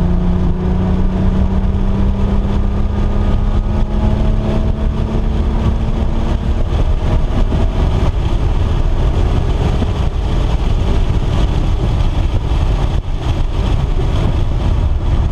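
Car engine running at speed, its pitch rising slowly over the first several seconds and then fading into heavy, steady wind and road rumble.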